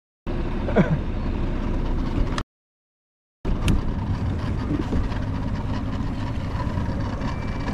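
Outboard motor running steadily on a moving boat. The sound drops out completely for about a second between two clips.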